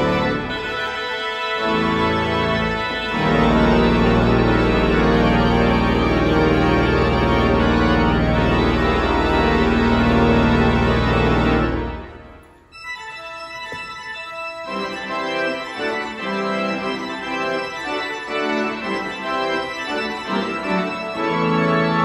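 Pipe organ improvisation: full, sustained chords over deep pedal bass that break off about twelve seconds in, the church's reverberation dying away. The organ then carries on more softly in a lighter registration without the deep bass, and the bass returns right at the end.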